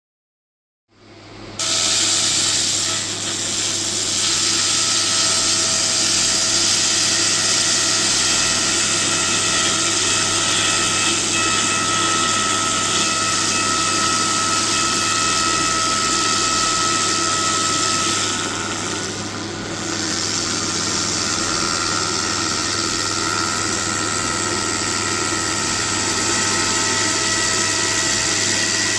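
Shark 120 laser cleaner ablating rust from steel: a loud, steady, hissing buzz with a high whine and a low hum, starting about a second in and easing briefly about two-thirds of the way through.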